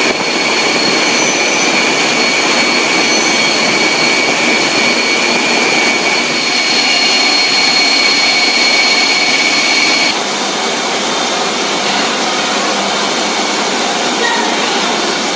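Steady, loud noise of processing-line machinery with a high whine; the sound changes abruptly about ten seconds in, the whine stopping and the noise dropping slightly.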